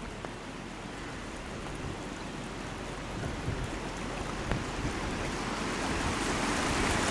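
Steady rushing of floodwater pouring across and beside a road, growing gradually louder.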